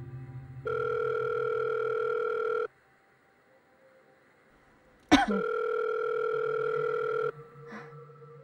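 Electronic telephone ringing tone, a steady buzzy note sounding in two-second bursts with pauses of about two and a half seconds between them. A short, sharp downward-swooping blip, the loudest sound, comes just before the second burst, about five seconds in.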